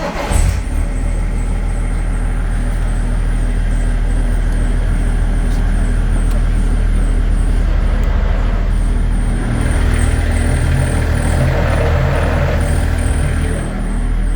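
BMW E46 330d's straight-six diesel engine starting and then running steadily, with a faint high chirp repeating throughout. From about ten seconds in the engine note turns rougher and fuller for a few seconds, the noise the owner asks about when engaging the clutch.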